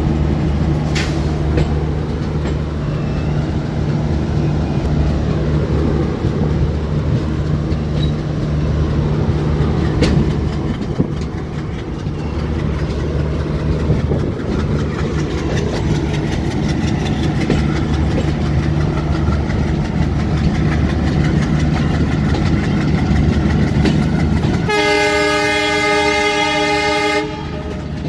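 WDM3D diesel-electric locomotive's 16-cylinder ALCO engine running loud and steady, with wheels clattering on the rails. Near the end its air horn sounds one long blast of about two and a half seconds.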